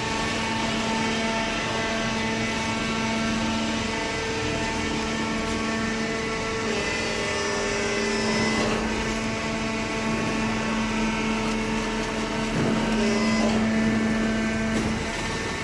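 Industrial cardboard baling machinery running: a steady mechanical hum with several held tones that change every few seconds as the machine works.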